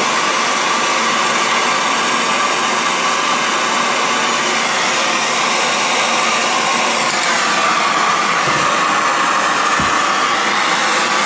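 A MAPP gas torch burning steadily with a loud, even hiss while heating a soldered copper pipe joint.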